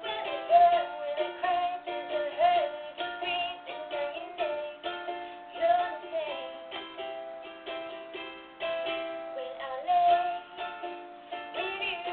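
A guitar playing chords as accompaniment to a solo voice singing a pop ballad, in a small room.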